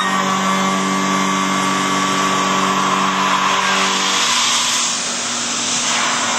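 CNC milling machine facing off an exhaust flange, taking 0.025 in off the face: a steady spindle hum under a loud hiss of the compressed-air blast that cools the cut. The hum drops away about four seconds in while the hiss carries on.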